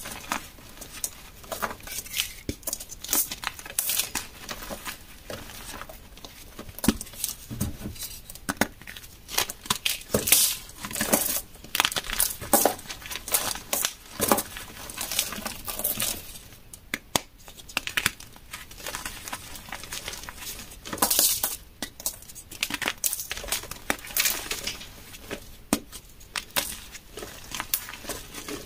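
Blocks of dyed gym chalk crushed and crumbled in the hands: an irregular run of dry crunches and crackles, with bits and powder sifting through the fingers.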